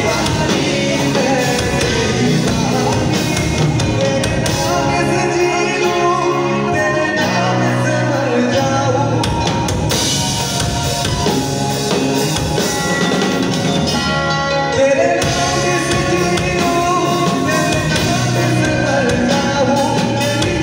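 Live rock band playing: a man sings into a microphone over guitar, keyboard and drum kit, all amplified through PA speakers.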